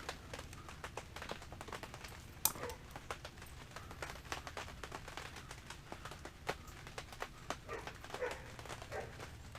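Irregular light clicks and taps as a motorcycle rear brake caliper's pads and retaining pin are handled and turned into place, with one sharper click about two and a half seconds in.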